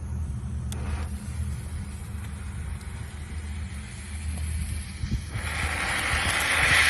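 Steady low rumble of wind and highway traffic. About five seconds in, a sword-shaped firework fountain ignites and sprays sparks with a rushing hiss that swells louder.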